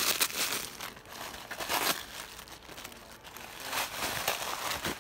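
Gift wrapping paper crinkling and rustling in irregular bursts as a small package is handled and unwrapped by hand.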